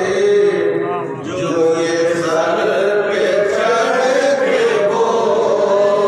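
Men singing a Sufi manqabat, drawing out long notes whose pitch glides up and down.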